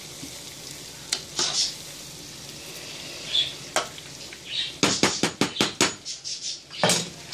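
Battered chicken breast pieces deep-frying in hot oil, a steady sizzle, while a slotted spatula stirs them and clicks against the pot. Near the middle comes a quick run of about eight clicks in a second.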